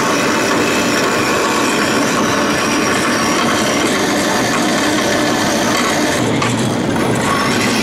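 Vertical bandsaw blade cutting through a thick metal bar, a steady rasping saw noise over the running machine, roughing out a small part to its layout lines.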